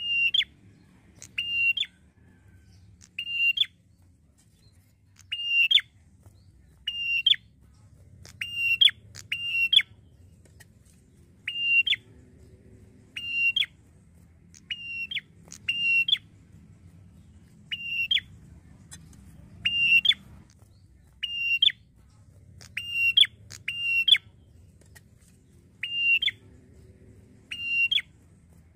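Ashy tailorbird calling over and over: short, sharp whistled phrases, each a brief level note that ends in a quick upward flick, about one every one and a half seconds, some of them doubled.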